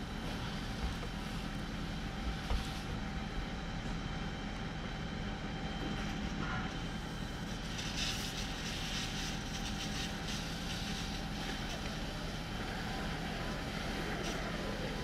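Steady low engine rumble with a constant hum, typical of fire apparatus and emergency vehicles idling at a crash scene. About eight seconds in a hiss rises for a second or two, then fades.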